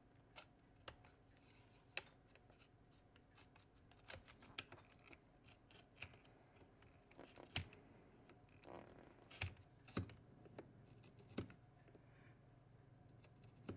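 Faint scratching and clicking of a digital vernier caliper's jaw point scribing a line around the end of an RC truck's chassis rail, with a few sharper clicks in the second half.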